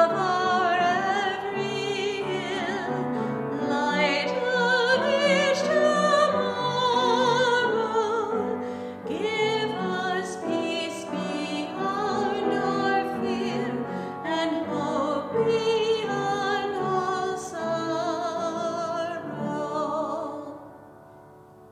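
A woman singing a solo with vibrato, with piano accompaniment; the song ends near the end.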